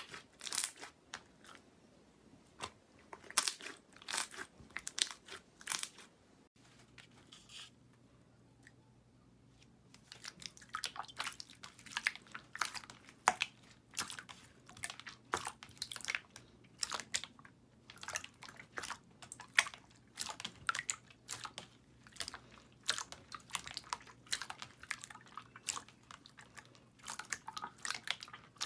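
Slime being squeezed and worked by hand, making many quick, sharp pops and crackles. The pops stop for about three seconds after a change partway through, then start again thick and fast.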